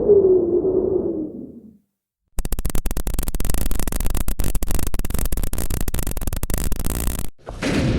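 A sequence of synthetic horror sound effects: a pitched drone fades out, then after a brief silence about five seconds of harsh crackling, static-like noise that cuts off abruptly, followed near the end by a sudden hit that rings out and fades.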